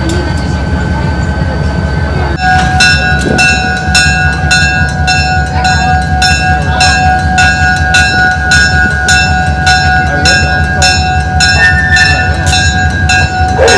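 Diesel locomotive running with a steady low rumble as the train moves through the station. From about two seconds in, a locomotive bell rings steadily, about twice a second.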